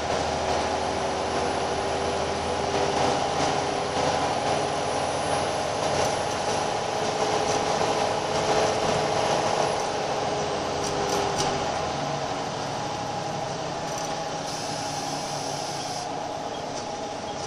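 Inside a Scania L94UB Wright Solar single-deck bus under way: the engine and driveline drone steadily with a whine, over road noise. The whine and drone ease off about ten seconds in.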